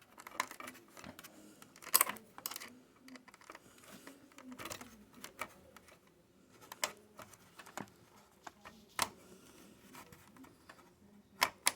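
Scattered small clicks and light taps of a screwdriver, screws and a computer optical drive's metal bracket being handled during a drive swap.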